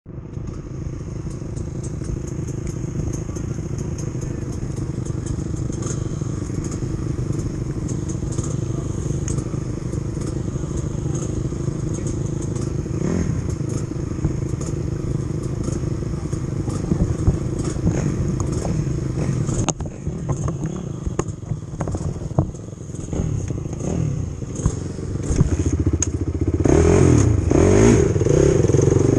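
Sport quad's single engine idling steadily, then revved in rising and falling blips from about 26 seconds in as it pulls away across gravel.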